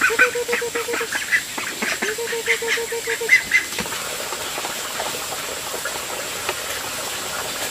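Ducks quacking in quick runs of repeated calls, busiest in the first three and a half seconds and then dying down.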